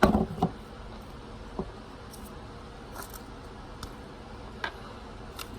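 Small plastic toy pieces and packaging being handled: a short rustle and clatter at the start, then scattered light clicks and taps.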